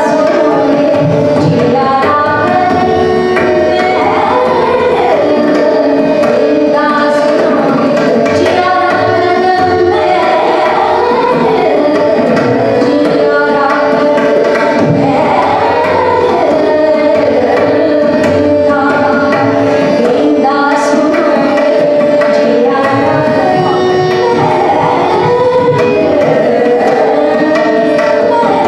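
Hindustani classical vocal music: a woman singing with tabla accompaniment over a steady held drone.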